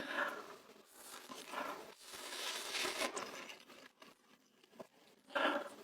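Close-miked eating sounds: irregular crunching and crinkling of a food wrapper, in several separate bursts with the loudest short one near the end.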